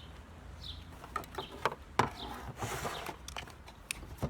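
Scattered clicks and knocks of parts being handled during dismantling, with a few short falling bird chirps.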